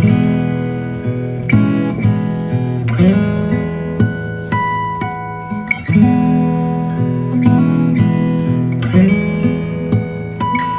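Background music: acoustic guitar strummed and picked.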